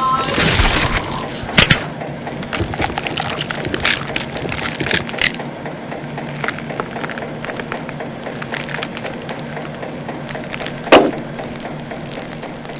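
Horror-trailer sound effects: a steady low drone under irregular cracking and crackling, with a burst of noise at the start, a loud hit about a second and a half in and a sharp crack near the end.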